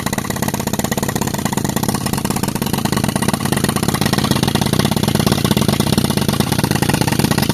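Pneumatic rock breaker hammering continuously at a rapid, even rate, powered by a tractor-driven air compressor. It is breaking up a boulder.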